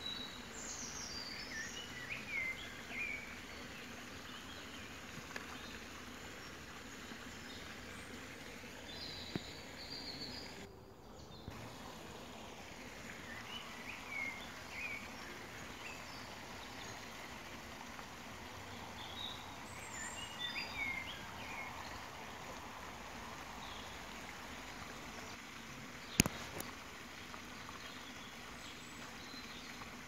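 Wild birds singing in a dawn chorus, recorded on a phone: scattered chirps and short song phrases over a steady background hiss. One sharp click near the end is the loudest sound.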